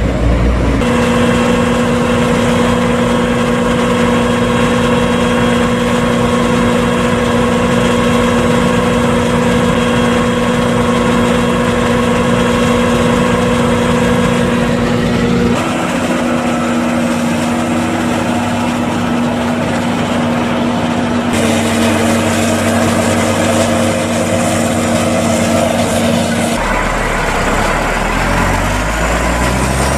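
A Claas Jaguar 870 forage harvester runs steadily while chopping corn, with heavy diesel engine tones. The sound changes abruptly twice partway through. Near the end a Ginaf agrotruck's engine takes over, rising in pitch as it pulls away.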